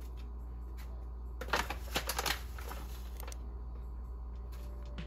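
Ground coffee poured from a bag into a gold mesh coffee filter, with the bag rustling and crinkling. The rustling comes in a cluster from about a second and a half to two and a half seconds in, over a steady low hum.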